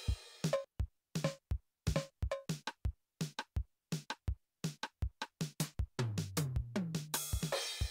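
TR-707-style drum machine samples from the RT-7070 drum rompler plugin playing a beat of sharp, separate drum hits. About six seconds in comes a fast run of pitched drum hits falling in pitch, with a cymbal ringing over the end.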